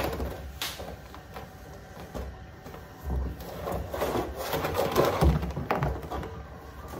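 Large blue plastic drum being rolled and rocked by hand on paving: an irregular scraping, rumbling sound, busiest in the second half, with a couple of dull thumps.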